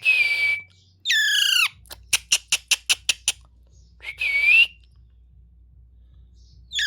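Young parrot calling: two harsh squawks with a held whistling tone and two whistled calls that slide steeply down in pitch, with a quick run of about eight sharp clicks between them. It is a baby parrot still trying to learn to talk.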